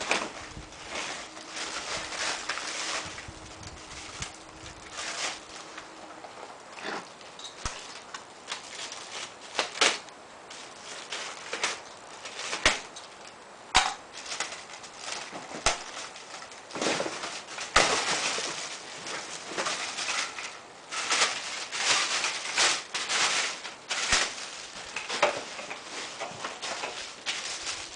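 Packaging being handled and torn open: irregular rustling and crinkling with scattered sharp clicks and knocks.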